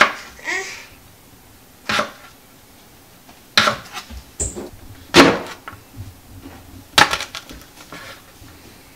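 Chef's knife slicing fresh ginger on a plastic cutting board: a few separate knocks of the blade hitting the board, a second or more apart, with fainter taps near the end.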